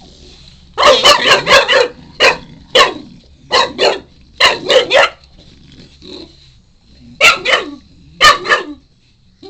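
Shar-pei puppy barking loudly in short quick runs, demanding a chew treat.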